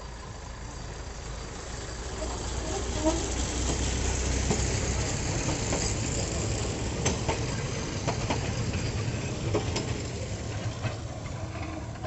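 A miniature train passing: a small locomotive running with a low steady hum, then its open passenger coaches rolling by on the narrow-gauge track, wheels clicking repeatedly over the rail joints.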